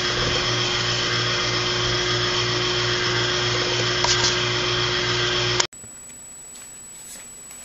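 Bottle conveyor line running: a steady mechanical hum with a few held tones that cuts off abruptly about two-thirds of the way through, leaving quiet room tone with a faint high steady whine.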